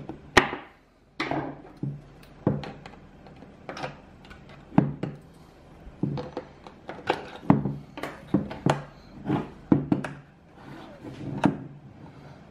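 Irregular clicks and knocks from handling the plastic case of an ANENG AN-999S bench multimeter and flipping out its fold-out stand legs, about one or two sharp knocks a second.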